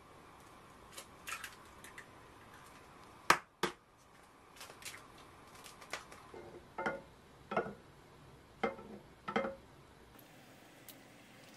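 Eggs being cracked for frying in a ceramic frying pan: a sharp double tap of shell about a third of the way in, then several softer knocks and clicks of kitchen handling.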